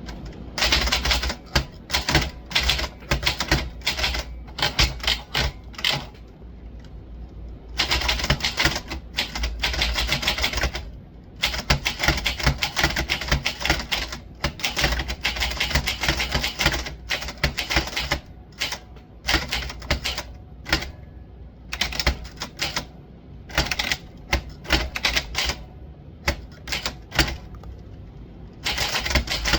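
Typewriter being typed on: runs of rapid keystrokes in bursts, broken by short pauses.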